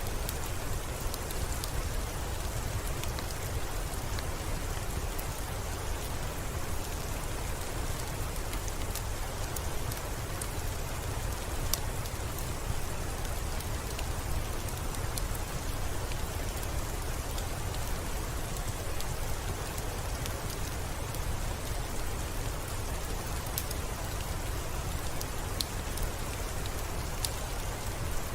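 Steady rain falling, with a low steady rumble beneath it and faint sharp ticks scattered throughout.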